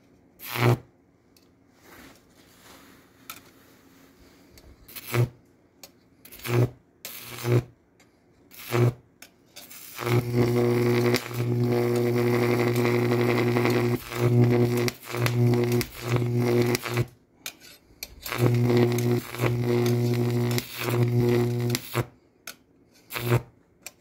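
Microwave-oven-transformer Jacob's ladder arcing. Over the first ten seconds there are short, sharp snaps. Then a sustained high-voltage arc buzzes loudly with a strong mains hum and hiss, breaking off and re-striking several times.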